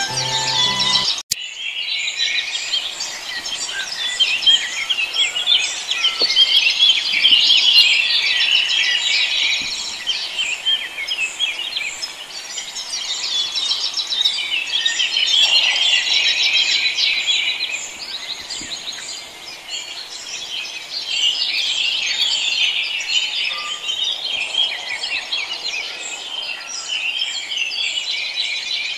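Dense chorus of many small songbirds chirping and twittering, swelling and fading in loudness.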